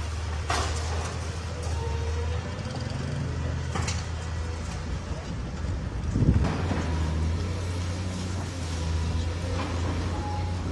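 Diesel engine of a long-reach demolition excavator running steadily, with scattered knocks of breaking concrete and debris; the loudest, a heavy thump, comes about six seconds in.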